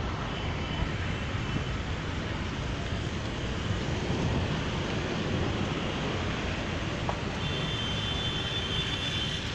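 Steady road traffic noise: cars going by on a rain-wet road, a continuous low rumble with tyre hiss.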